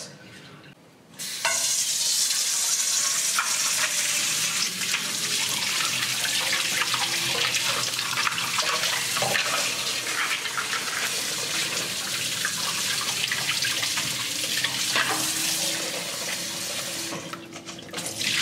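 Kitchen faucet running into a stainless steel bowl of crab shells, rinsing the salty seasoning off them. The water comes on about a second in and runs steadily. Near the end the water is tipped out of the bowl into the sink.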